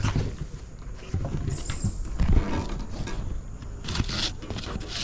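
Rustling, scraping and small knocks of hands handling an Adventure Kings rooftop tent's heavy-duty cover and straps on a roof rack, irregular, with a short hiss about one and a half seconds in.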